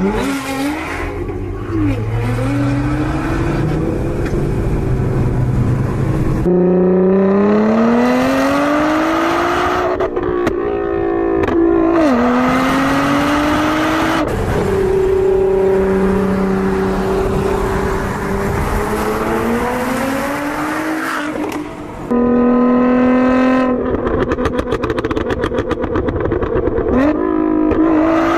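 Nissan GT-R R35's twin-turbo V6 through an Armytrix aftermarket exhaust, revving hard and accelerating through the gears. The pitch climbs steadily and drops sharply at each upshift, over several loud pulls in a row.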